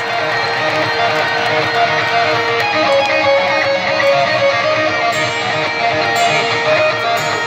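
Live heavy metal band playing the guitar-led opening of a song in an arena, a picked electric guitar melody ringing over sustained notes.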